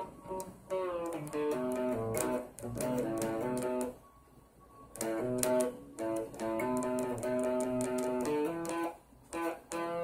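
Guitar music: plucked notes and held chords, breaking off briefly about four seconds in.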